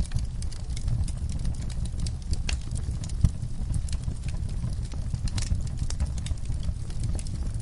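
Wood fire in a fireplace crackling, with irregular sharp pops and snaps over a low steady rumble; one pop a little over three seconds in stands out louder.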